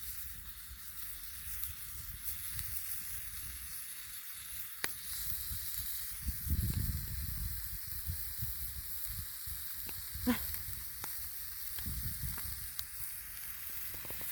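Ground beef sizzling in a pan over a campfire: a steady hiss with a few small pops. A low rumble swells about six to seven seconds in.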